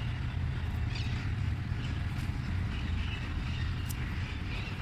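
Steady low rumble of background traffic or wind noise, with a couple of faint snips of scissors cutting red amaranth stems, about a second in and again near the end.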